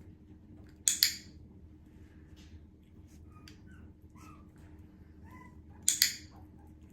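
A training clicker clicked twice, about five seconds apart, each a sharp double click of press and release, marking the Havanese puppy's behaviour for a treat. Faint puppy whimpers come between the clicks.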